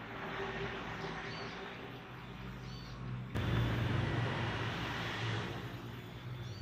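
A motor engine runs steadily with a low hum and hiss, louder after about three seconds in.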